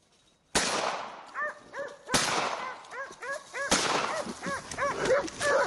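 Hunting dogs barking and yelping rapidly as they bay a wounded wild boar. Three loud gunshots, about a second and a half apart, sound over the barking.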